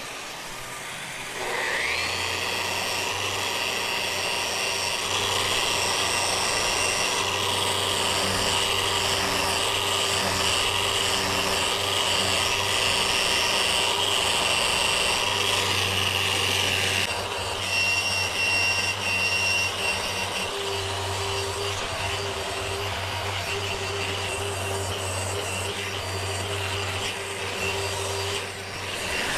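Electric random orbital sander with a dust-extraction hose spinning up and running steadily with a high whine as it sands down an old repair on a fibreglass boat hull. The sander's note shifts slightly partway through.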